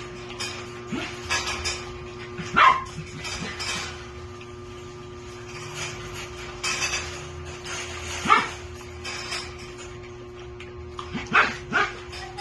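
A dog giving a few short, sharp barks: one about three seconds in, one about eight seconds in, and two close together near the end, over a steady hum.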